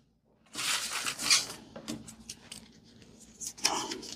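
A folded paper slip being unfolded by hand, the paper rustling and crinkling, loudest in the first two seconds, then a few soft crackles and clicks.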